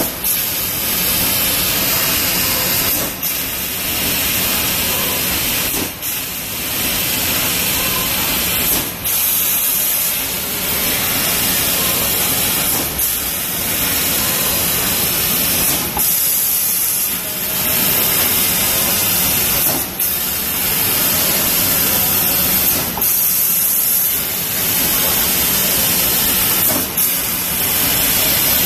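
TRUMPF laser cutting machine cutting sheet metal: a loud, steady hiss from the cutting head, broken by short dips about every three seconds.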